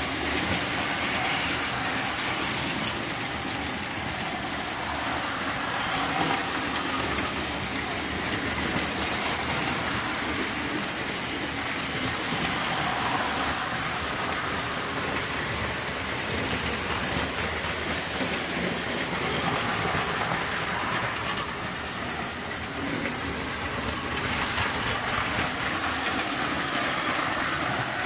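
Several Lionel tinplate toy trains running at once on three-rail metal track: a steady running noise of their electric motors and metal wheels on the rails.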